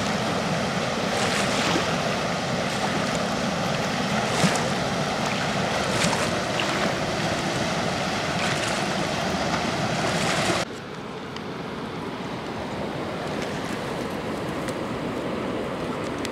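Steady rush of water pouring through a river dam, with a couple of short knocks; about ten seconds in it drops suddenly to a quieter, more distant rush.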